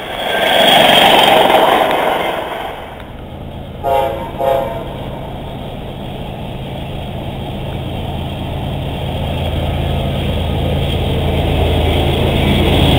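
A loud rushing noise swells and fades in the first two seconds. About four seconds in, two short blasts of a locomotive air horn sound, then the rumble of approaching CSX diesel freight locomotives grows steadily louder.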